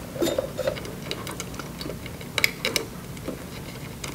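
Scattered small clicks and ticks of wire connectors being handled and pushed onto the terminals of a treadmill control board.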